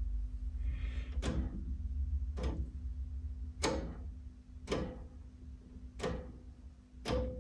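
A valve tester's rotary selector switch is clicked through its detent positions, six sharp clicks about a second apart, each with a short ring, over a steady low mains-type hum.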